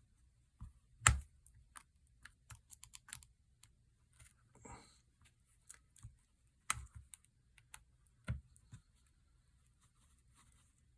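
A thin metal pry tool clicking and scraping against a Samsung Galaxy S20 Plus's back glass and frame as it is worked around the edge to break the heat-softened adhesive. The clicks are scattered and irregular, the loudest about a second in, with a short scrape about halfway through.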